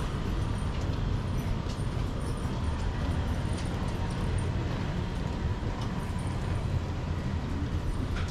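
Steady low rumble of vehicle noise in a city, with a few faint clicks.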